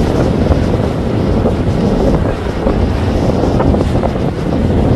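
Motor yacht cruising past, its engines running and its hull wash splashing, with wind buffeting the microphone.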